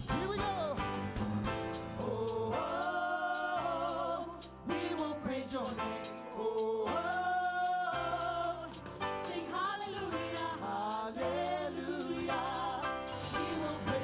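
Live gospel-style praise and worship song: vocalists sing long, wavering held 'oh' notes and runs over a band with drums.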